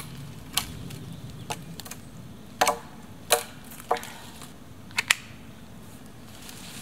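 A knife chopping at a thin wooden pole: about seven sharp woody knocks at irregular intervals, two of them close together about five seconds in.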